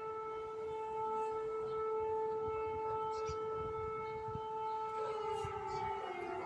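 Civil-defence air-raid siren sounding a long steady tone, which begins to fall in pitch about five seconds in as it starts to wind down.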